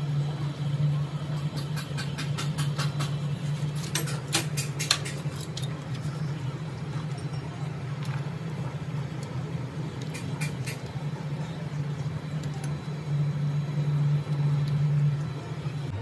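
A steady low hum throughout, with quick runs of sharp metallic clicking from hand tools working on a diesel engine's cylinder head: around two seconds in, again about four seconds in, and briefly near ten seconds.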